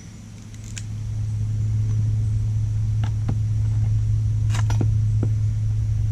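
A steady low hum that grows louder over the first second and a half, then holds, with a handful of light clicks and taps from small parts being handled.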